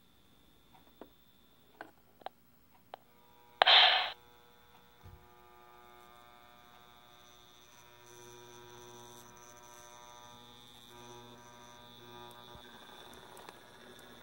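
Lionel Pullmor open-frame electric motor, freshly cleaned and oiled, running with a steady hum that sets in about four seconds in and grows a little stronger about halfway through. Before it, a few light clicks and one brief loud burst just under four seconds in.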